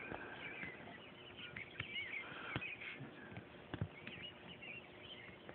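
Faint background birds chirping in short, quick calls, with a few light clicks scattered through.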